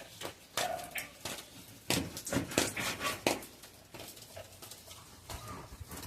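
Kitchen knife knocking on a cutting board while beef is cut into pieces, about six irregular sharp taps, with a dog whimpering faintly.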